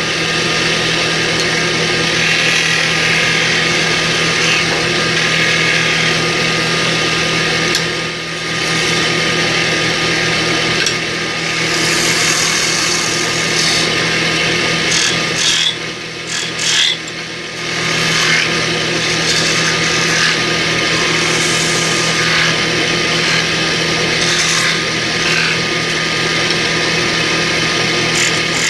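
Wood lathe running with a steady hum while a hand-held turning chisel cuts a spinning wooden rolling pin, a continuous scraping cut. The cut breaks off briefly about 8 s in and again around 16 to 17 seconds.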